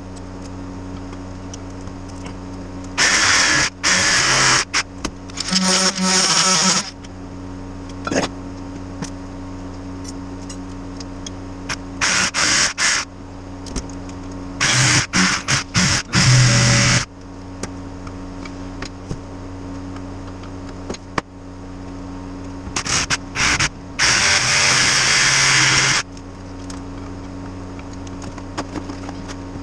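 Power tools cutting through a foam-filled tire in several loud bursts of a few seconds each, with a steady hum in between.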